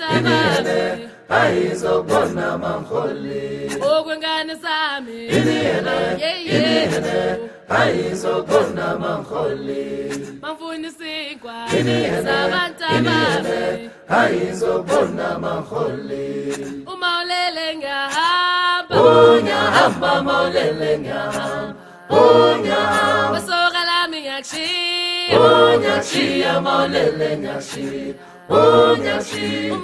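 Choir singing a cappella, in sung phrases broken by short pauses.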